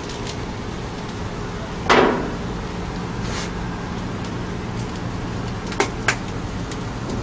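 A single loud knock about two seconds in, and two short sharp clicks near the end, over a steady low hum.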